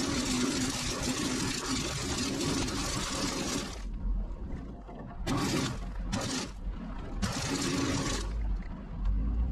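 Truck-mounted sand spreader running as the truck moves: a steady hum under a loud hiss. In the second half the hiss cuts out several times, leaving only a low rumble.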